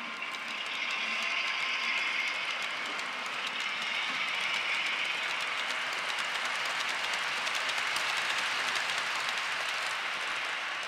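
Model railroad tank cars rolling along the track: a steady rolling whir of small wheels on rails with faint fine clicking.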